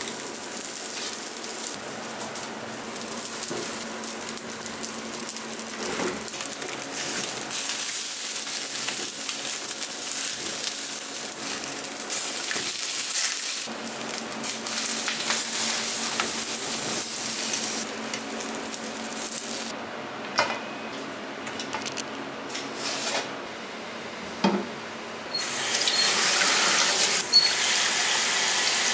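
Pot of pork bones at a rolling boil, bubbling steadily while metal tongs turn the bones, with a few sharp metal knocks. About 25 seconds in, a kitchen tap starts running hard onto the bones in a steel bowl in the sink.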